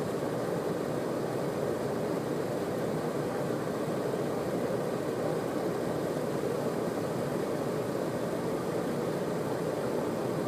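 Steady noise inside an idling car's cabin: an even, unchanging hum with no revving.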